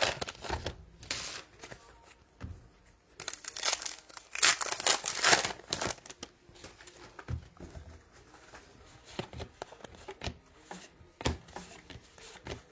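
A trading card pack's wrapper crinkling and tearing as it is ripped open, loudest for a few seconds about three seconds in, followed by softer rustles and clicks of cards being handled.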